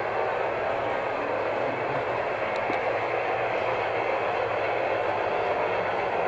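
Model train running on its garden-railway track, a steady rolling rush with no let-up.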